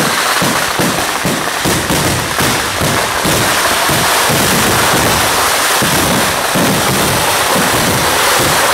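Kerala vedikettu fireworks: a dense barrage of firecrackers bursting in rapid succession. The bangs merge into a continuous crackling roar after about three seconds.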